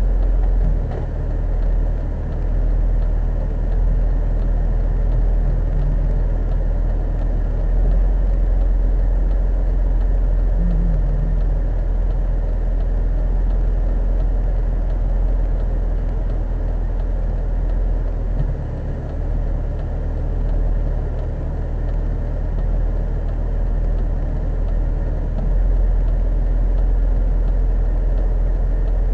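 Car on the move: a steady low rumble of engine and road noise, rising and falling a little in level.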